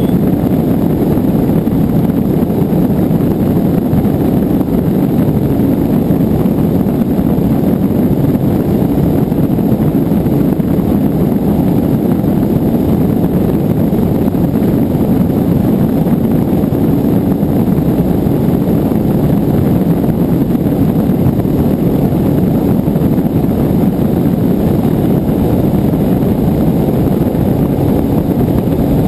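Bass boat running at speed on flat water: a steady, low rush of outboard engine, hull and wind noise that holds the same level throughout.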